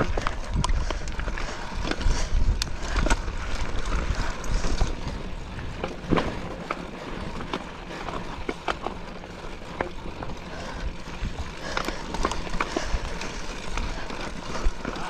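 Mountain bike ridden up a rough, rocky trail: tyres grinding over rock and gravel, with frequent sharp clicks and knocks from the bike jolting over stones, over a low rumble that is heaviest in the first half.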